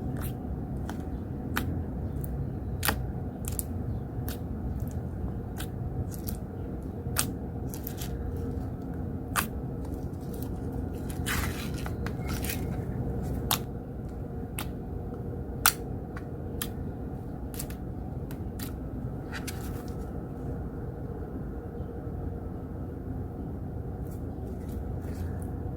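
Slime being played with by hand: sharp, irregular clicking and popping, with a brief crackly stretch in the middle. A steady low background rumble comes in through an open window.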